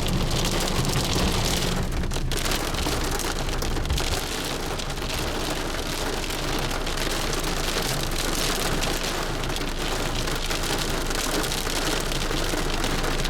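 Heavy rain with big drops and small hailstones falling steadily, with thunder rumbling during the first few seconds and then dying away.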